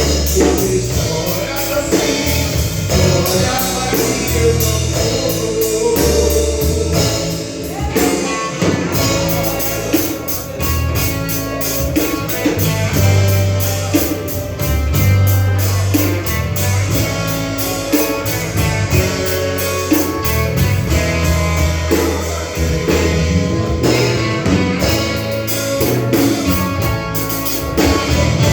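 A band playing a gospel song with drum kit, bass and guitar, with singing over it.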